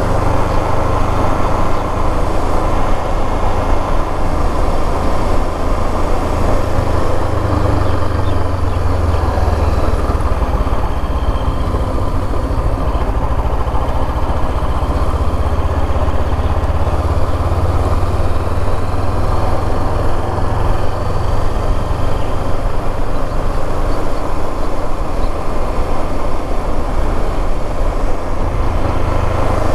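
Motorcycle cruising at a steady speed, its engine running under a constant rush of wind on the microphone. The sound is loud and even throughout, with a heavy low rumble.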